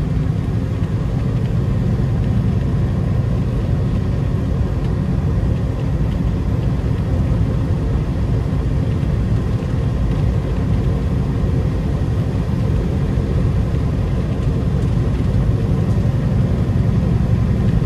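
Peterbilt 389 semi truck's diesel engine running under way, a steady low rumble with road noise, heard from inside the cab.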